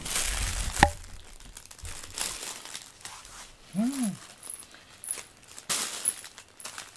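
A red bag crinkling in bursts under a black cat as it is stroked and shifts its weight on it. A sharp click comes about a second in, and a brief low sound rising and falling in pitch near the middle.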